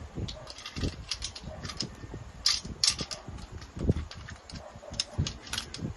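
Irregular clicks, taps and light knocks of hand assembly: screws and table parts being handled and driven in while the tabletop is fastened.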